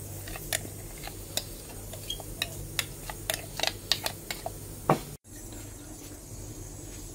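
Spiced panipuri water being poured from a glass bowl into a ceramic bowl: a scatter of small clicks and drips, with one louder knock just before five seconds, over a low steady hum. The sound drops out for an instant just after.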